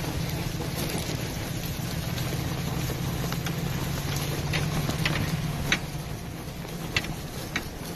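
Wind rushing on the microphone over a steady low hum that fades out about six seconds in, with a few short sharp clicks scattered through the second half.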